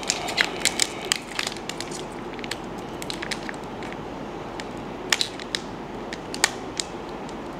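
Foil booster pack wrapper of Pokémon trading cards crinkling and crackling as fingers work it open by hand, in sharp irregular crackles that are thickest in the first second or so and then scattered.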